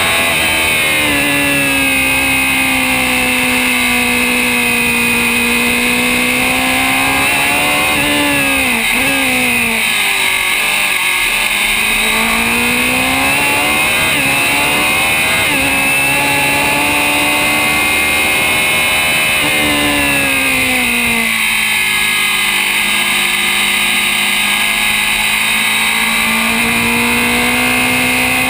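Engine of a historic Grand Prix open-wheel race car at racing speed, heard from on board. Its pitch dips twice, about a third of the way in and again about two-thirds in, as the car slows for corners. Each time it climbs again under acceleration.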